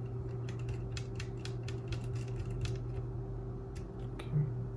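Small, sharp, irregular clicks and taps of a tiny screw and screwdriver being handled on the plastic and metal parts of a portable cassette player, several a second at first and fewer towards the end, over a steady low electrical hum.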